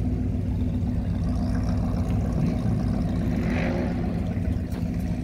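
An engine running steadily, a low even hum that holds one pitch throughout.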